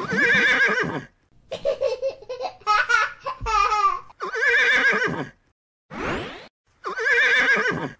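Horse whinnying: three long, wavering whinnies of about a second each, near the start, about four seconds in and about seven seconds in, with shorter sounds between them.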